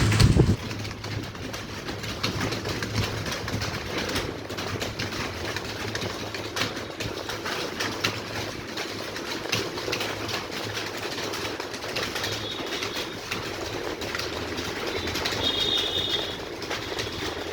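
Many computer keyboards being typed on at once during a typing test: a dense, uneven clatter of key clicks.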